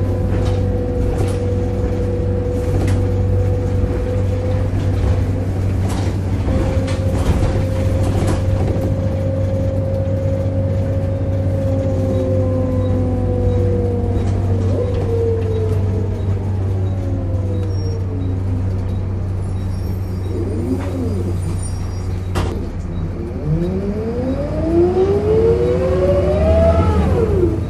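Volvo B7RLE bus heard from on board, running with a pitched groaning whine over a steady low hum. The whine holds level at first, falls away as the bus slows, then climbs sharply as it pulls away again near the end.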